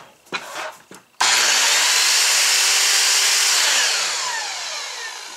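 Skil 10-inch sliding compound miter saw's motor starting about a second in and running loud and steady at full speed. Near the middle it is switched off and the blade coasts down, its whine falling in pitch as the noise fades.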